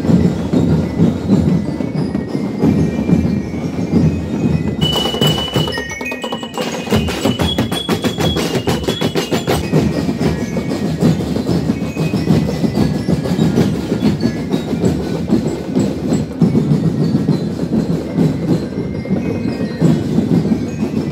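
Street-parade drum-and-lyre band: massed drums beat a fast, steady rhythm throughout. About a quarter of the way in, metal bell lyres ring a run of short high notes over the drumming.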